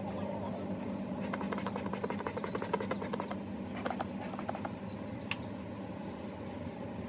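Honeybees buzzing in a steady low hum. About a second in comes a run of rapid crackling clicks lasting a couple of seconds, then a few more clicks, and one sharp click near the middle of the second half.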